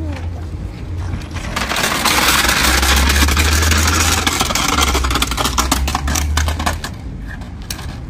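Small plastic wheels of a toy Henry vacuum cleaner rattling and scraping as it is pulled along rough asphalt, a dense clattering that grows loud about a second and a half in and eases off near the end.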